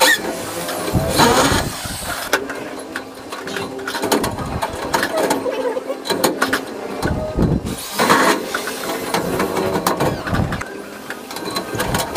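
Spandrel ceiling panels being pushed into place and fastened overhead: irregular knocks, clicks and rattles of the panels, with a power drill running in stretches in the middle, boring holes for blind rivets.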